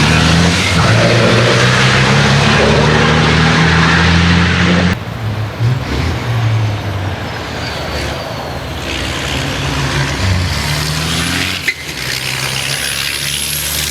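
Race trucks' diesel engines running hard, loud for about five seconds, then cutting abruptly to a quieter truck engine with a high turbo whistle gliding in pitch.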